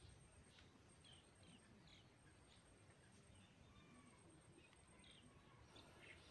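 Near silence with faint, scattered bird chirps every second or so over a low outdoor background hiss.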